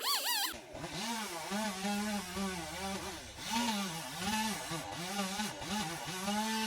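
Two-stroke chainsaw running at high revs, its pitch repeatedly dipping and recovering, as when the saw bogs under cutting load or the throttle is blipped.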